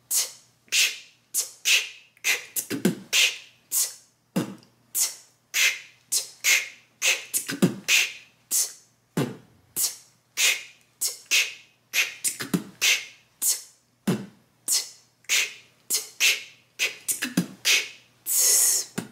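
A woman beatboxing a drum-kit routine at a slow tempo: lip-made B kick drums, T hi-hats and K snares in a repeating pattern, a few strikes a second. A longer hiss comes near the end.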